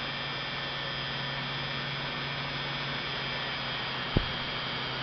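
Sewing-machine motor of a small sensitive drill press running steadily with a smooth, even hum while it drills a small hole in brass. A single short knock about four seconds in.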